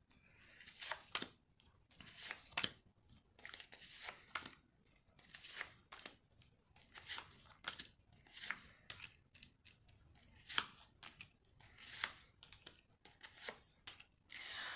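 A tarot deck being shuffled by hand: a string of short papery swishes as the cards slide against each other.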